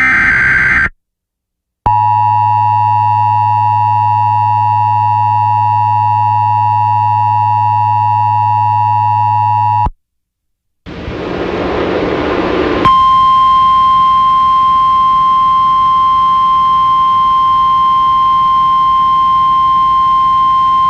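Emergency Alert System tones. The last burst of the digital SAME header squawks briefly, then the two-tone EAS attention signal holds steady for about eight seconds and cuts off. After about a second of silence a hiss of static rises, and a single steady NOAA weather-radio warning tone sounds over it for about nine seconds, announcing the dust storm warning.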